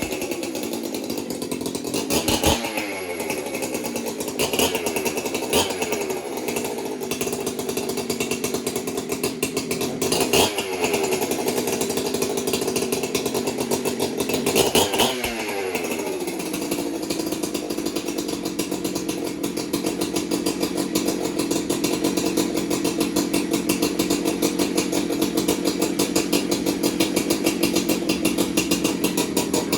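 Freshly rebuilt Jonsered 2065 two-stroke chainsaw engine running on its first start-up: it is revved briefly several times, each rev falling back, then it settles into a steady idle for the second half.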